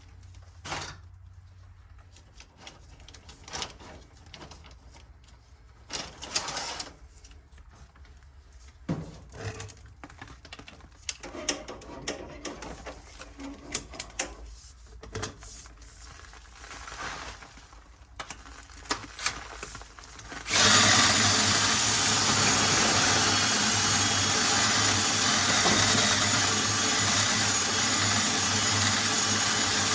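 Scattered knocks and clatter of equipment being handled, then about two-thirds in an electric motor starts abruptly and runs steadily and loudly: a rotary chimney-cleaning machine spinning its brush on rods.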